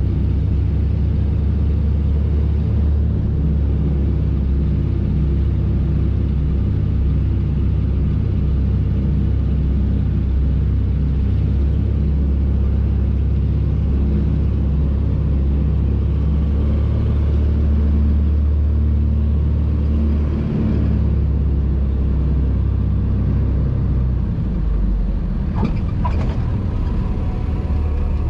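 Twin six-cylinder Lycoming piston engines and propellers of a Britten-Norman Islander, heard from inside the cabin: a loud, steady drone on the final approach. About twenty seconds in the drone changes pitch as the aircraft is on the runway, and a couple of short knocks come near the end.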